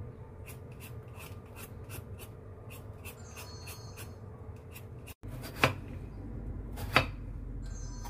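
Hand vegetable peeler scraping the skin off a hairy melon in quick, repeated strokes. About five seconds in, this gives way to two loud knife chops through the peeled melon onto a cutting board.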